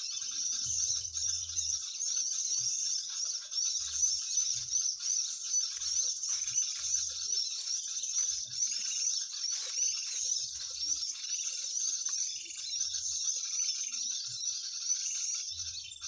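Dense, unbroken high-pitched chatter of many small birds calling at once, with a few faint low thumps underneath.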